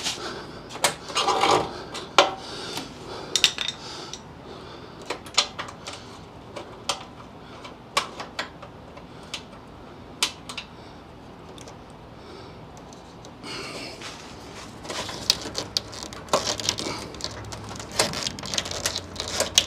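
Light metallic clicks and clinks of hands working bolts and a screwdriver at a steel body mount. They are clustered in the first couple of seconds, sparse through the middle, and busier again from about two-thirds of the way in.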